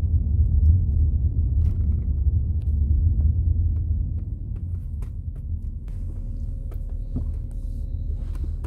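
Low rumble of a car driving, heard from inside the cabin, growing quieter about four seconds in and then running on more evenly.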